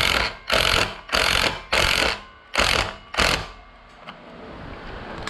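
A small power tool's motor run in about six short bursts, one every half second or so, then stopping.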